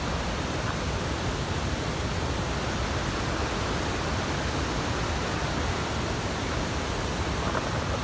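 Steady rush of a waterfall and river rapids, an even wash of water noise with no breaks.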